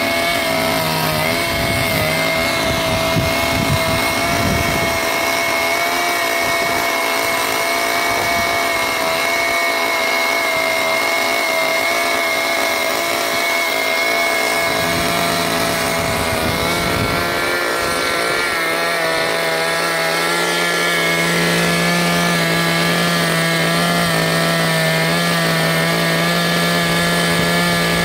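Petrol chainsaw running at high revs while carving hair detail into hard, resinous Mediterranean pine. The engine holds a steady pitch that shifts slightly partway through.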